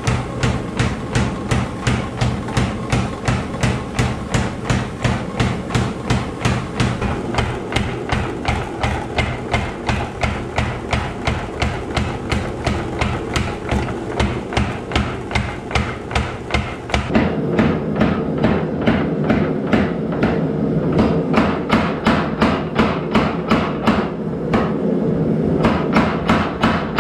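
Mechanical power hammer striking a bar of hot 52100 high-carbon steel in a fast, even run of blows, drawing it narrower, with the machine's steady drive hum beneath.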